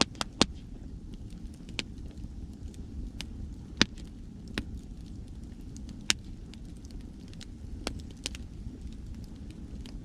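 Wood campfire crackling, with irregular sharp pops, a few of them loud, over a steady low rumble of waves.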